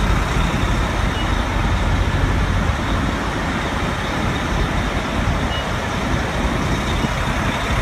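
Steady low rumble of semi-truck diesel engines running at a truck-stop fuel island.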